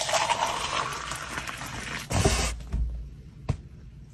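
Milk poured in a stream from a height into a plastic cup, splashing, for about two and a half seconds; then it goes quieter, with a single sharp knock near the end.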